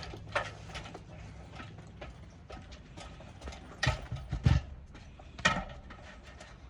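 Cordless trim nail gun firing 2-inch ring-shank nails into clapboard siding: a few sharp, separate shots, the loudest two about four seconds in, half a second apart.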